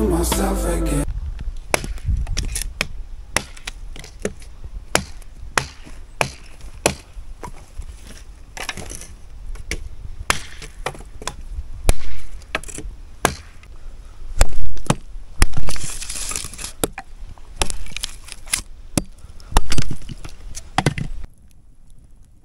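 Firewood being chopped: irregular, sharp chopping blows on wood, with a few much louder, heavier strikes in the second half.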